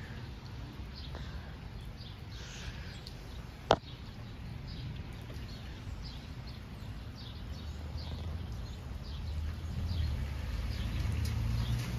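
Outdoor ambience: faint bird chirps scattered throughout over a low rumble that grows louder in the last few seconds, with one sharp click a little under four seconds in.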